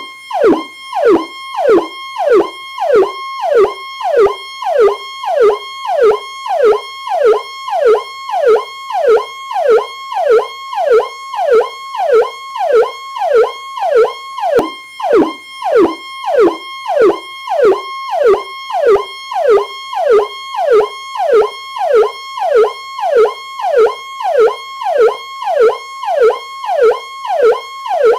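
Powercall electronic police siren sounding continuously: each cycle holds a steady high tone, then drops sharply in pitch, repeating about four times every three seconds.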